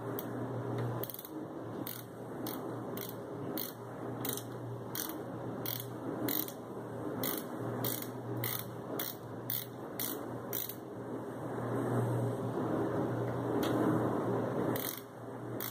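Screwdriver turning the screws that mount a power supply into a computer case, making a run of light clicks about two or three a second that pauses briefly near the end. A steady low hum runs underneath.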